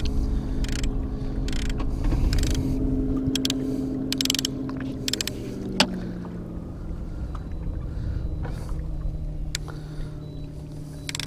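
Mercury outboard motor running steadily, its pitch settling lower about halfway through, with short bursts of hiss and a sharp click about six seconds in.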